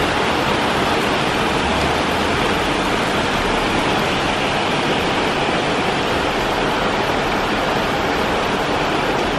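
Heavy downpour: rain falling steadily on roofs and a wet street, a dense, even hiss.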